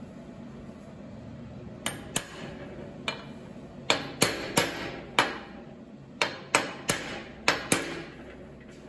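Hammer striking a steel socket set on a new sealed bearing, driving the bearing into a mini bike torque converter's housing plate. About a dozen sharp metallic taps, each with a short ring, start about two seconds in. The first taps are lighter and the later ones harder.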